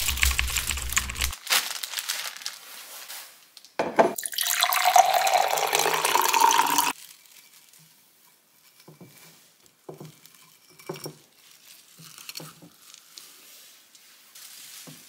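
A water tap runs for about three seconds into a vessel, its pitch rising as the vessel fills, then shuts off abruptly. It is preceded in the first second by a loud rush with a low rumble, and followed by faint clicks and knocks.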